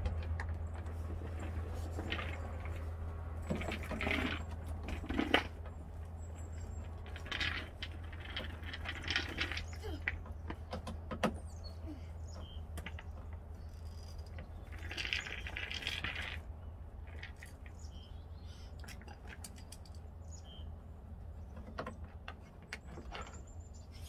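Small clicks, scrapes and light metallic clinks of a hand screwdriver working screws out of a car's plastic tailgate trim panel, over a steady low hum.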